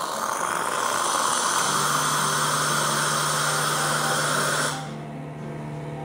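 Hot water and steam rushing with a loud hiss from the hot water tap of a Lelit MaraX heat-exchanger espresso machine into a plastic jug, as the still-hot boiler is purged of water after the machine is switched off. The hiss cuts off suddenly about three quarters of the way through, leaving a fainter steady hum.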